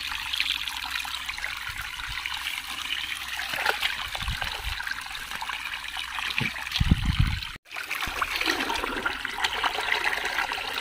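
Muddy paddy-ditch water trickling steadily, with a few dull thumps about seven seconds in.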